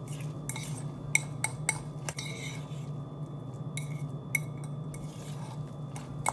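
Metal utensil stirring a wet cauliflower-crust mixture in a ceramic bowl, clinking and scraping against the bowl in irregular taps. A steady low hum runs underneath.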